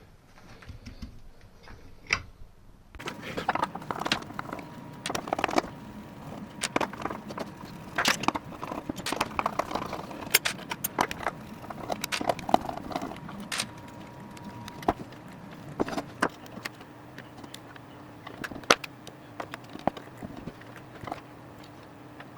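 Scattered sharp clicks, taps and small metal clinks of hand tools at work on a circuit board during desoldering, irregular and of varying loudness, over a steady background hum.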